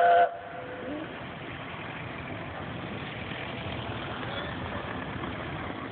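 The end of a short steam whistle blast from LNER Peppercorn A1 locomotive 60163 Tornado, cutting off just after the start, followed by the locomotive's steady running noise as it leaves the station.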